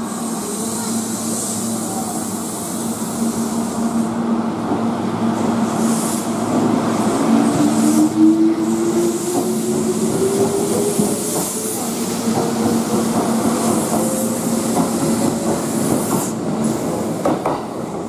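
Kintetsu 12410-series limited-express electric train pulling out of the station. A steady hum sounds under a traction-motor whine that rises slowly in pitch as the train gathers speed. Wheel clicks over the rail joints come as the last cars pass, and the sound eases off near the end.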